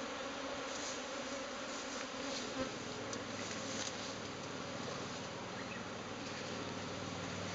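A swarm of Japanese honeybees in flight, a steady, dense buzzing of many bees together. The swarm cluster is breaking up and the bees are taking to the air to head for a new nest site.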